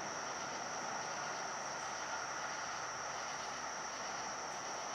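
Steady background hiss with a constant high-pitched whine, unchanging throughout, with no distinct events.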